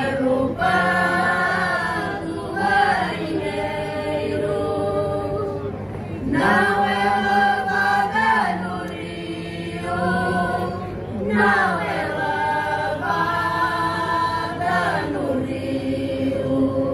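Mixed choir singing Cante Alentejano unaccompanied: slow, drawn-out vocal phrases with long held notes, with short breaks for breath between phrases.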